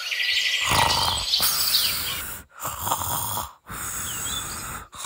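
Snoring sound effect for a sleeping cartoon character: three long snores, each cut off sharply, with birds chirping faintly at the start.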